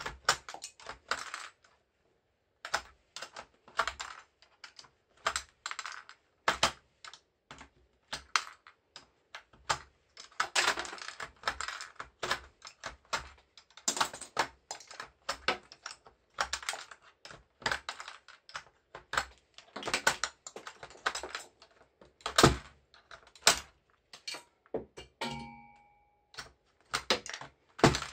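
Plastic keycaps being pried off a full-size computer keyboard and dropped onto the keyboard and tabletop: irregular clicks, snaps and light clattering in quick clusters with short pauses between them. A brief ringing sound comes near the end.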